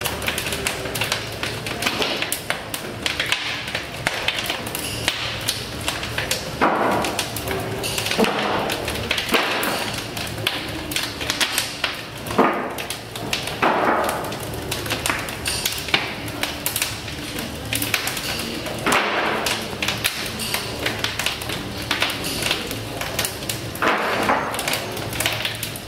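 Irregular metallic taps and knocks as a steam boiler's valve handwheels and fittings are worked by hand, with several short rushes of noise in between.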